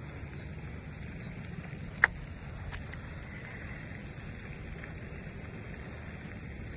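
Outdoor pond-side ambience: a steady high insect drone, typical of crickets, over a low hiss, with faint short chirps and one sharp click about two seconds in, followed by a fainter one.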